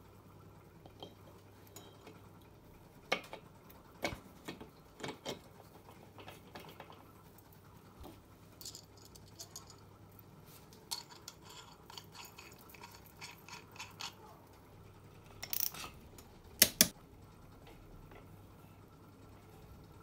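Scattered light metallic clicks and clinks of small parts being handled as a Vespa largeframe engine's flywheel is fitted onto the crankshaft and its nut and washer are picked up, with two sharp clinks close together near the end.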